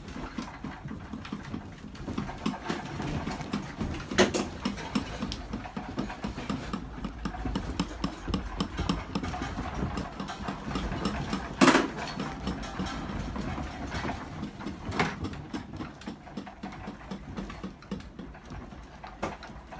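A room and its contents rattling and creaking as an earthquake shakes the building, over a steady low rumble, with a few sharper knocks.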